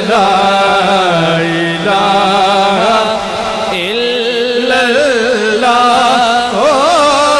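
Male voices singing a naat, drawing out long melismatic notes that waver and glide in pitch without a break.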